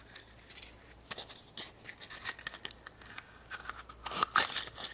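Hands opening a surprise-egg toy: small plastic clicks and the crinkling and tearing of a thin wrapper, busiest about four seconds in.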